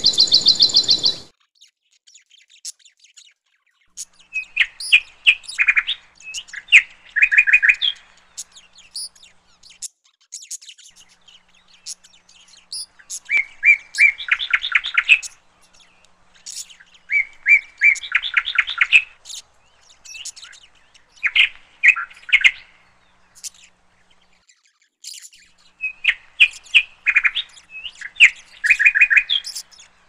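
Fledgling common cuckoo begging to be fed: bouts of rapid, high trilled calls, each a second or two long, every few seconds, with single sharp chips between. A different sound cuts off about a second in.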